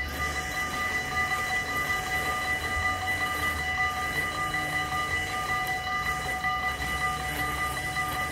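Dutch railway level-crossing warning bell ringing steadily with a high, rapid ringing, the signal that a train is approaching and the barriers are coming down.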